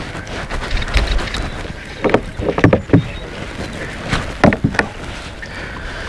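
Water splashing and sloshing in a shallow river, in short clusters about two, three and four and a half seconds in, over steady background noise.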